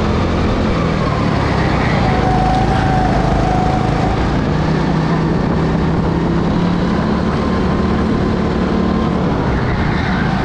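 Racing kart engine running hard, heard from onboard. Its note falls about two seconds in, climbs back and holds, then falls again near the end, as the kart slows and accelerates through the lap.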